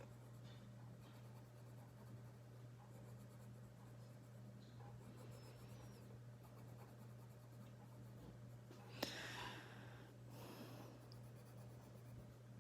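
Faint scratching of a coloured pencil on paper as an area is coloured in, over a steady low hum. About nine seconds in there is a sharp click followed by a brief louder scrape.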